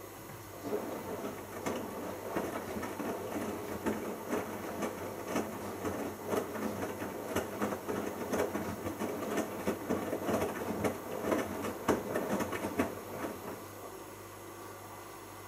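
Bosch Logixx WAS32461 washing machine in its main wash: the drum turns, tumbling wet laundry with a dense patter of splashes and soft thuds. It starts about half a second in and stops near the end as the drum pauses.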